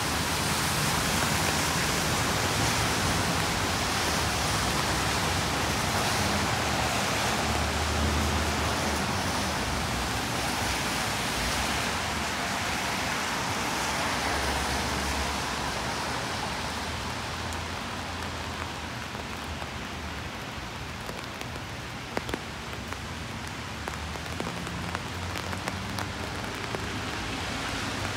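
Steady rain falling on a city street, a dense hiss with a low rumble of traffic underneath. The hiss eases off in the second half, and a few sharp taps of drops come about two-thirds of the way through.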